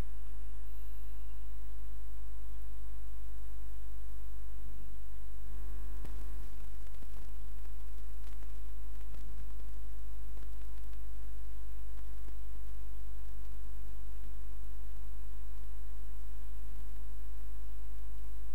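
Steady electrical mains hum with a buzzy stack of evenly spaced overtones, unchanging throughout.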